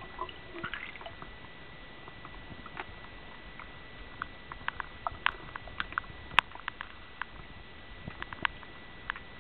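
Underwater sound picked up by a submerged camera: a steady faint hiss with a thin high tone, broken by scattered sharp clicks and ticks that come several a second around the middle and again near the end, the loudest a little past halfway.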